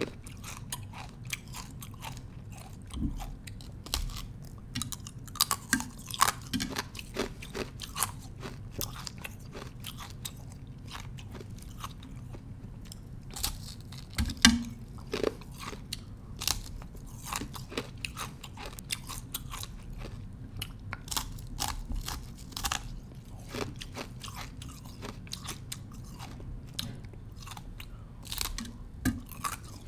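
A thin slab of ice being bitten and chewed: an irregular stream of sharp cracks and crunches, loudest about halfway through.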